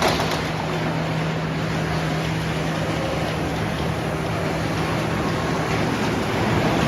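Sawmill running steadily: an even engine hum under a wide wash of machine and cutting noise, with a brief click right at the start.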